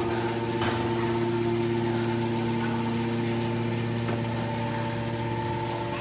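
Hydraulic power unit of a 200-ton automatic scrap metal baler running, its electric motor and pump giving a steady, even hum.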